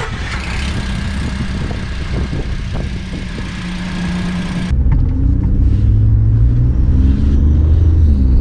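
Ford F-150's 3.5-litre EcoBoost twin-turbo V6 running just after start-up. About halfway there is a cut to the engine pulling on the road, heard from inside the cab, its pitch rising under acceleration. Through it runs the chirping that the owner puts down to a warped, leaking exhaust manifold.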